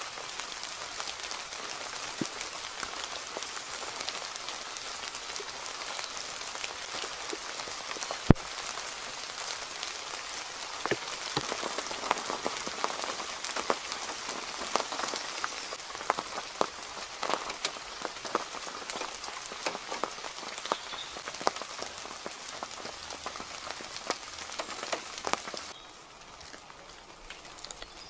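Steady rain falling on woodland leaves and the ground, with many individual drops ticking sharply and one louder tap about eight seconds in. The rain turns quieter near the end.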